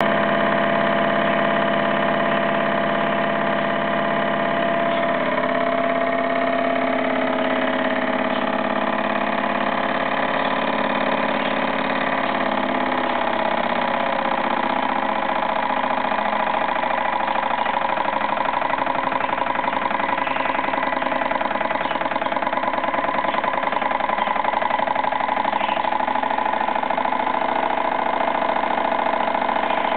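Jensen 75 live-steam engine running fast and steady on alcohol-fired steam, driving a small belt-driven dynamo: a rapid, even mechanical whir, its pitch shifting a little in the first half.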